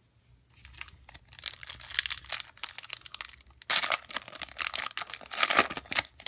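Foil wrapper of a Panini Absolute Football trading-card pack crinkling and tearing as it is ripped open by hand. The crackling starts about half a second in, and the loudest tearing comes just past the middle and again near the end.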